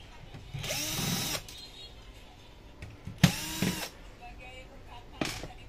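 Cordless power screwdriver run twice in short bursts on screws in a printer's frame, each run spinning up, holding briefly and winding down. A sharp click follows near the end.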